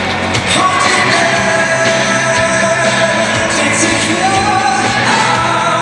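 Live rock band playing with a singer, loud and reverberant in a large hall.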